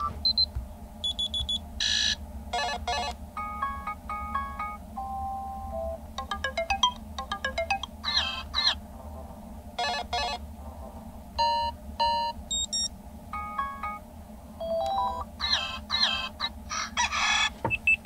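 Stock Android alarm tones previewing one after another through a Chuwi HiPad X tablet's built-in speaker: a quick string of short electronic chimes, beep patterns and melody fragments, each cut off as the next tone is selected.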